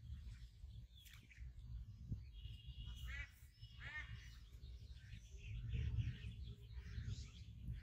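Birds calling, with two clear chirping calls about three and four seconds in, over a low steady rumble.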